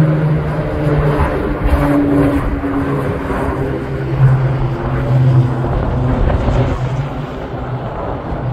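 Single-engine propeller airplane flying low overhead: a steady engine-and-propeller drone whose pitch slides slightly lower as it passes and heads away, easing off a little near the end.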